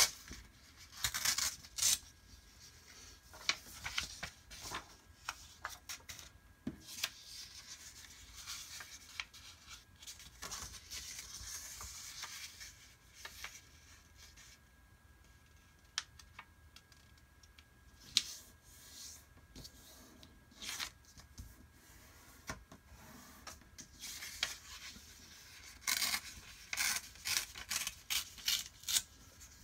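A sheet of paper being folded, creased and torn by hand: intermittent crisp rustling and rubbing, with a quick run of sharp crackling bursts near the end.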